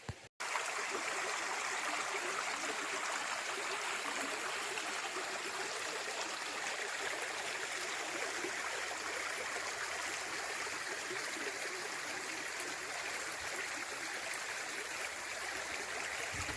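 A stream flowing steadily, an even rushing of water that doesn't change.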